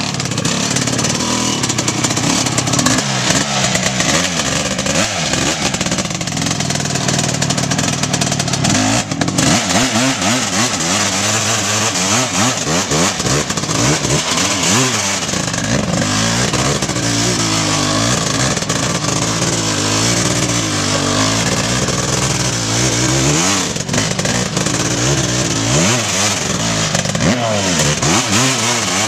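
Honda CR500 two-stroke single-cylinder engine swapped into a 400EX quad, being ridden hard. Its pitch rises and falls over and over as the throttle is opened and let off.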